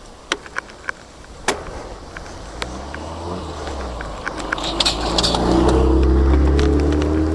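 A few sharp clicks in the first second and a half, then a motor vehicle approaches and passes, its engine hum loudest about six seconds in and dropping slightly in pitch as it moves away.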